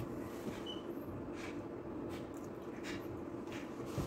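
A man chewing a soft bite of cooked elk testicle with faint, irregular mouth sounds over a steady low hum, and a small click near the end.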